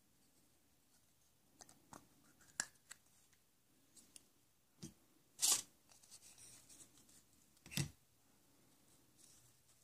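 Faint handling of packaging: scattered crinkles, taps and clicks, with two louder rustles about five and a half and nearly eight seconds in.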